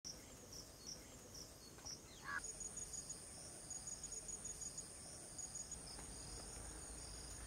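Faint insect chirping: short, evenly repeated high chirps, with a steady high-pitched buzz coming in about two seconds in.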